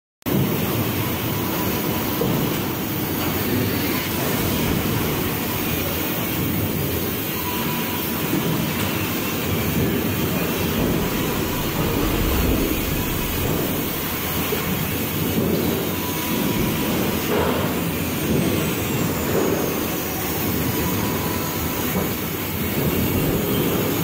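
Sawmill log infeed line running: log deck and chain conveyors moving logs, a steady mechanical din with no let-up.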